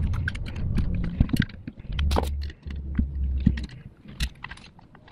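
Light metal clicks and clinks as a screwdriver snugs down the base screws of a Holley 94 carburetor and the carburetor body is handled. Low dull rumbles of handling come and go, the longest about two seconds in.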